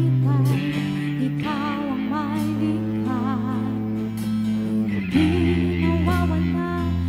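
Instrumental intro of a worship song played by a band: guitars over held bass notes that change twice, with a melody line wavering in vibrato above them.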